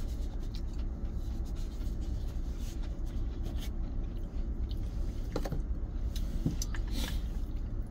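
Steady low rumble of an idling truck engine heard inside the cab, with a few faint clicks and rustles from handling a stainless steel food tin and a tissue.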